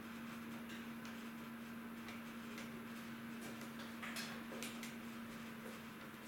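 A steady hum under light, irregular clicks and ticks, which come more often from about four seconds in.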